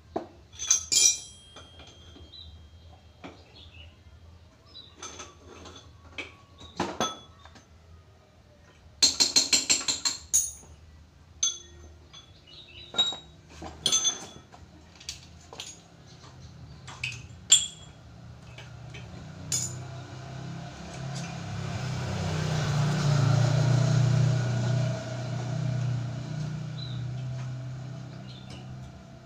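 Metal hand tools and loose engine parts clinking and knocking while a motorcycle engine is being dismantled, including a quick run of about ten clicks a third of the way in. Through the second half a low rumble swells and then fades.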